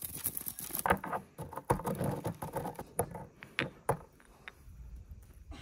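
Whole black peppercorns being crushed in a white mortar and pestle: a dense run of crunching and cracking with sharp knocks of the pestle against the bowl, easing to a quieter scraping about four seconds in.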